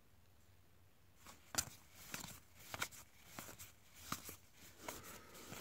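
Cardboard trading cards being flipped through by hand: after about a second of quiet, a series of short flicks and slides as each card is moved to the back of the stack.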